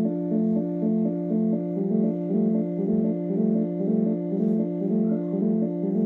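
Electronic keyboard playing a made-up ambulance siren: a chord of stacked notes switching back and forth between two pitches in an even loop, about twice a second.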